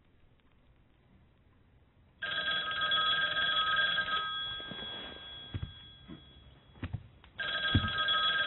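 A telephone ringing: two rings about two seconds long each, the first some two seconds in and the second near the end. A few soft knocks fall between the rings.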